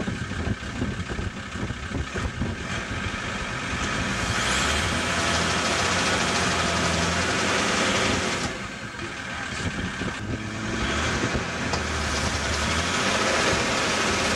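Roller starter spinning the rear wheel of a Triumph sprint bike, turning its engine over without it firing: the engine has no spark. It runs in two steady spells of several seconds, with a short pause between them.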